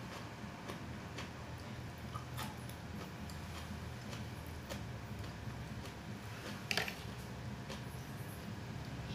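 Metal spoon clicking and scraping against a ceramic plate as food is scooped up: scattered light clicks, one louder scrape nearly seven seconds in, over a low steady hum.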